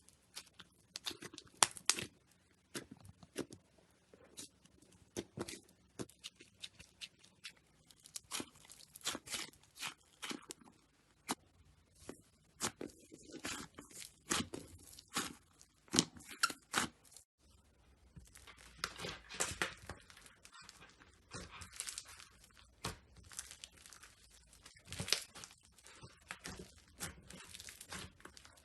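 Slime being squeezed, poked and stretched by hand, giving irregular sharp crackling pops and clicks. After a short break past the middle, a denser crinkling crackle runs on.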